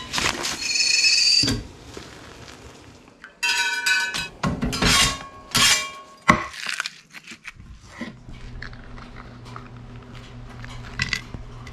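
Kitchen clatter of breakfast being made: dishes, pans and utensils clinking and knocking, with a few short ringing clinks. From about two-thirds of the way through, a steady low hum.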